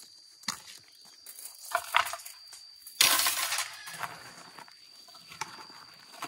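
A few light knocks, then a loud scraping rustle about three seconds in as a sack is set down on concrete and handled, fading over the next second.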